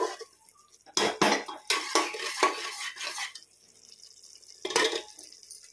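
Metal ladle scraping and clinking against the inside of a metal pressure cooker pot while stirring frying masala, a quick run of scrapes for a couple of seconds, then a single knock near the end.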